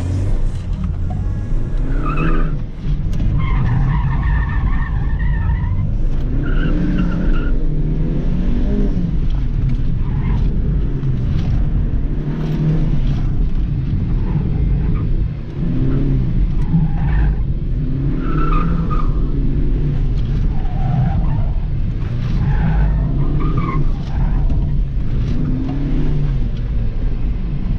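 The engine of a 2017 Honda Civic EX-T, a 1.5-litre turbocharged four-cylinder driving through a CVT, runs hard at a steady drone, heard from inside the cabin. The tyres squeal briefly about ten times as the car is thrown through the cone-course corners.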